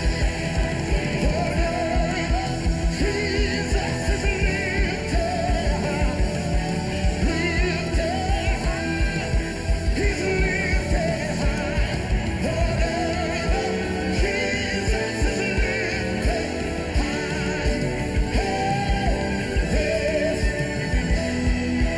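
Live band music with a steady beat, drums and electric guitars, and a soprano recorder playing a wavering, trilled melody over it, with singing.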